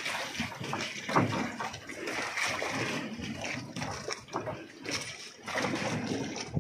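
Water splashing and sloshing against the side of a small boat, irregular, with small knocks.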